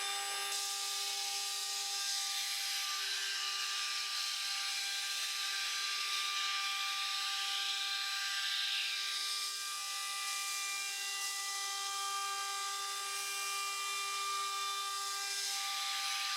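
CNC mill's high-speed spindle driving a single-flute end mill through 6060 aluminium, cutting a pocket. It makes a steady whine of several held tones over a continuous cutting hiss.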